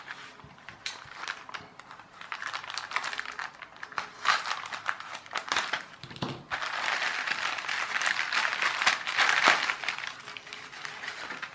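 Plastic postal mailer bag crinkling and crackling as it is handled and opened by hand, with a denser stretch of rustling from about halfway through.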